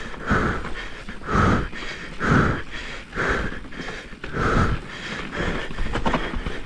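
A mountain biker panting heavily, about one hard breath a second, close to a helmet chin-mounted action camera's microphone, over a steady low rumble of the ride.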